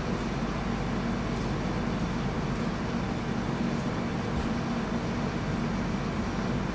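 Air-conditioning exhaust fan of an LHB railway coach running steadily: a constant rushing air noise with a low, even hum underneath.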